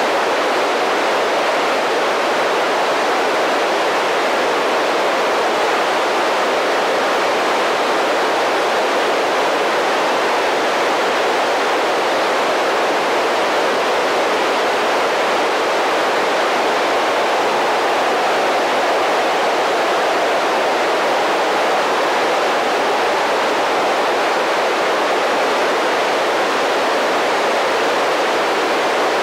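Steady FM static hiss from a handheld ham radio transceiver's speaker with the squelch open and no signal coming through: the sound of the receiver picking up no satellite downlink between contacts.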